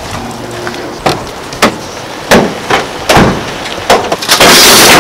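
A van's rear cargo doors and a gurney being handled: a run of sharp clunks and knocks, about six in three seconds. Near the end comes a loud rushing noise.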